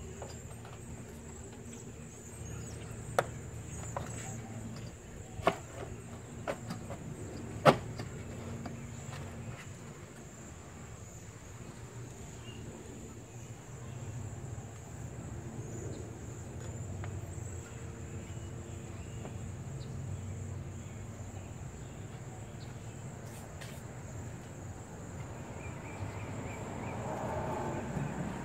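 Five sharp knocks and clicks in the first eight seconds, the loudest about eight seconds in, as the plastic replacement radiator cooling-fan and shroud assembly of a 2007 Toyota Corolla is worked down into place. A low steady background hum runs underneath.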